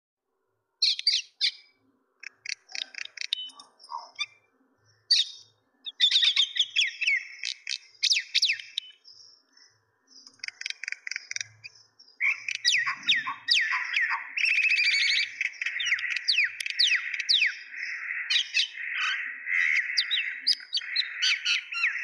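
A group of common mynas calling: irregular bursts of harsh chatter and whistled notes with quick falling sweeps. About halfway through, the calls merge into a dense, unbroken chatter.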